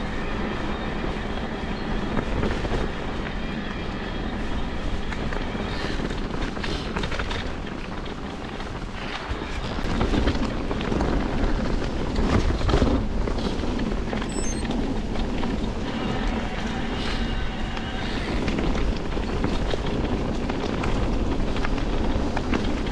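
Mountain bike rolling fast down a wet dirt forest trail: wind buffeting the microphone over the rumble of the tyres and knocks from the bike, getting louder about ten seconds in.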